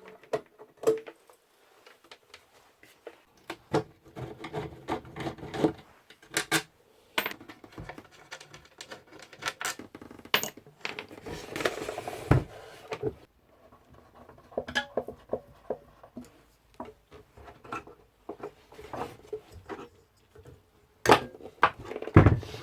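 Irregular clicks, knocks and scraping from hands and tools taking apart an old PYE valve radio to get its chassis out. A few louder knocks come near the end.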